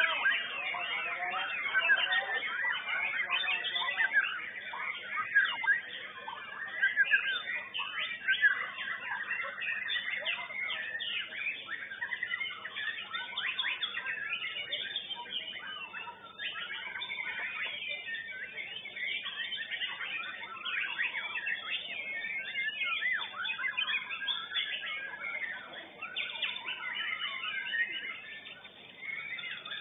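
White-rumped shamas (murai batu) singing, several birds at once: a dense, unbroken stream of varied whistles, trills and chirps.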